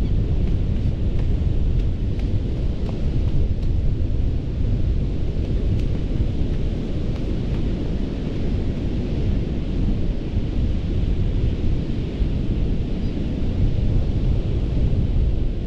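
Ocean surf washing onto a sandy Gulf beach: a continuous deep rumble with a softer hiss of breaking water on top.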